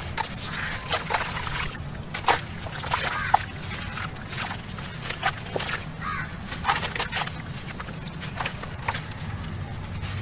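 A wet sand-cement lump crumbled by hand, grit and crumbs pattering and plopping into a tub of water in irregular small splashes, the loudest about two and three seconds in.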